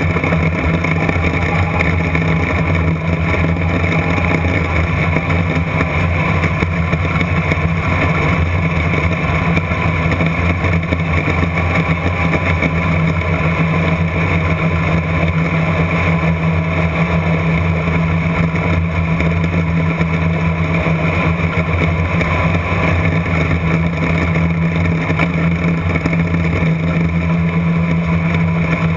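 Dirt-track race car's engine running hard and steady around the track, heard from inside the cockpit, with little change in pitch.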